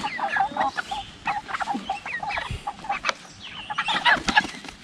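Pasture-raised white meat chickens making many short, rapid calls as they are handled and lifted out of a plastic tub into a pen. A few sharp flaps or knocks come near the end as a bird flaps free.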